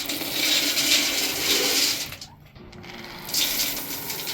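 Poultry feed poured into a hopper feeder: two long pours of rushing, hissing grain with a short break between them.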